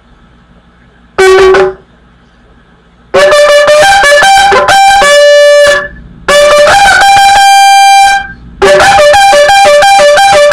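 A polished 35-inch shofar with a small mouthpiece blown in trumpet-like calls. A short low note comes about a second in. Then comes a run of notes jumping between two pitches, one long held higher note, and near the end a quick back-and-forth between the two pitches.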